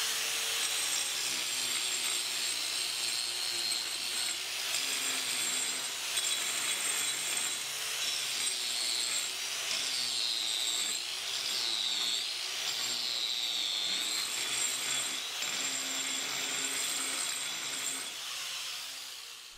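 Small electric angle grinder with a 4–5 inch diamond cup wheel grinding cured polyurea crack filler flush with a concrete floor: a steady high motor whine over the scrape of the wheel. Its pitch dips and recovers several times around the middle as the wheel is pressed into the material, and the sound fades near the end.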